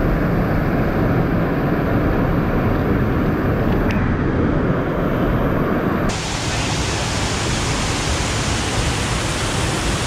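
Loud, steady rush of a waterfall heard up close, a dense roar of falling water. Its tone shifts abruptly about six seconds in.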